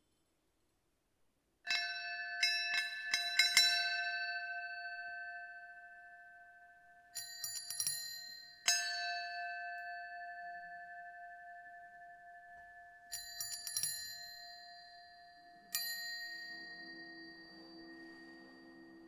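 Electroacoustic bell-like tones: groups of a few quick metallic strikes, each group left ringing on steady pitches that fade slowly, coming in after a moment of near silence and recurring three more times. Near the end a low drone of several held tones enters underneath.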